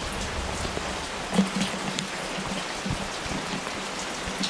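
Steady rain falling, with scattered louder drops tapping on a surface a few times.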